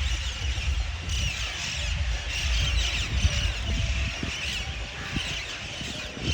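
A flock of parrots and crows calling all at once: a dense, continuous chatter of short high screeches, over a steady low rumble.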